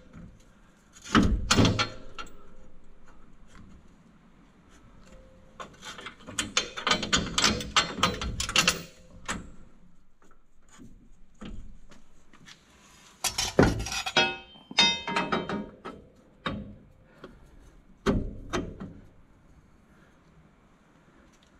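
A steel lift bracket being worked up into place under a side-by-side, with irregular metal knocks, clanks and scraping. About two-thirds of the way through comes a quick run of light metallic ticks.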